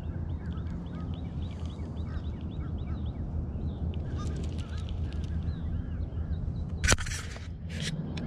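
Many birds chirping and calling in short, rising-and-falling notes over a steady low hum. A sharp clatter sounds about seven seconds in, and a shorter one about a second later.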